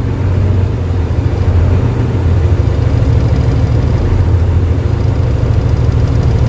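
Hino 500 truck's diesel engine idling steadily, a low, even drone heard from inside the cab.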